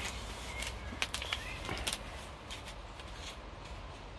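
Scissors cutting into the plastic of a soil-filled plant sack: a series of sharp snips and plastic crinkles, strongest in the first two seconds and fainter after.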